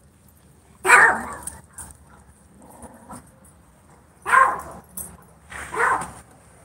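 German Shorthaired Pointer barking: one bark about a second in, then two more about a second and a half apart in the second half.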